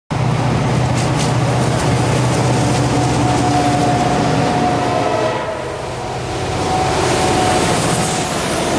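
Diesel freight locomotives passing close by, their engines running loud and steady over the rumble of the train. The sound dips briefly about five and a half seconds in, then builds again.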